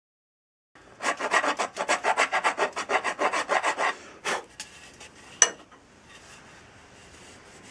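A hand file scraping across the end grain of an ash axe handle in quick strokes, about four or five a second for some three seconds, taking wood off one side of the tongue so the axe head seats straight. Then a single sharp click, and faint handling noise.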